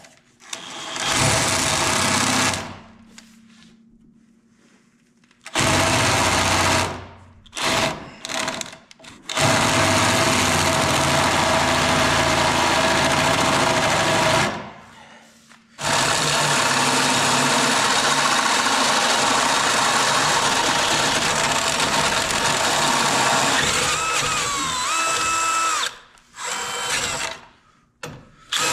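Cordless DeWalt drill boring a twist bit into a pickup's steel frame rail to open up a bolt hole, in several runs of a few seconds up to about ten seconds with short pauses between. Near the end a high squeal bends down and then holds as the bit bites into the metal.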